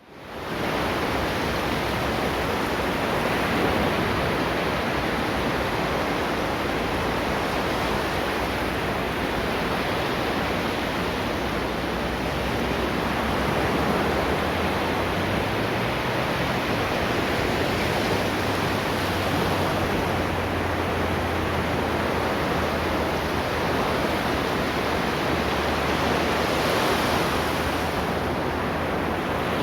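Ocean surf: a continuous wash of waves on the shore with slow, gentle swells, fading in at the very start.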